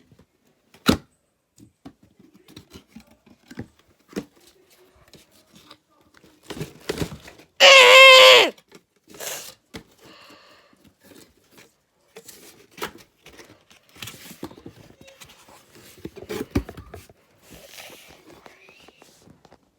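Cardboard box and packaging being torn and opened by hand: scattered clicks, knocks and rustling tears, with one loud screech lasting about a second about eight seconds in, and a sharp knock about a second in.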